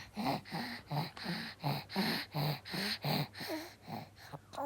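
A baby's rapid run of short, hoarse, breathy sounds, about three a second, weakening near the end. The baby's voice is hoarse and almost gone.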